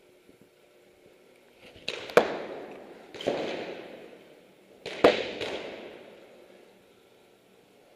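Paintball marker shots: about five sharp cracks in two clusters, around two and five seconds in, each ringing on in the echo of a large indoor hall.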